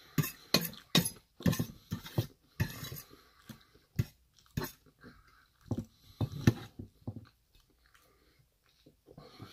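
Close-up chewing of a mouthful of tofu curry, with a quick run of wet mouth clicks for the first few seconds, then fewer and fainter ones near the end.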